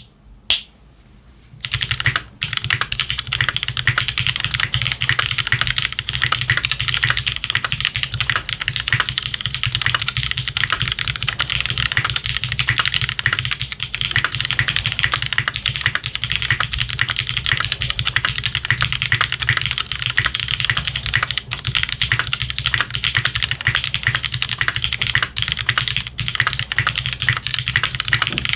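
Fast, continuous typing on a custom mechanical keyboard with lubed and filmed pre-retooled Cherry MX Black linear switches, DCS PBT keycaps and a plateless O-ring mount: a dense stream of key clacks. A couple of single keystrokes come first, and the steady typing starts about two seconds in.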